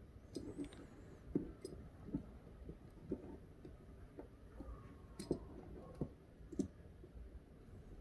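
Faint, irregular small clicks and taps of a butane micro torch's parts being handled and fitted back together during reassembly.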